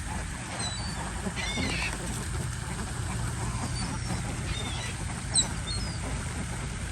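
Birds calling while being fed bread at a lake: many short, high calls scattered throughout, with one louder sharp call about five seconds in. A steady low rumble runs underneath.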